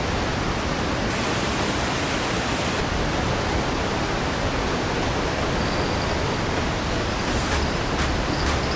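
Water rushing over a river weir, a steady even rush, with a few faint ticks near the end.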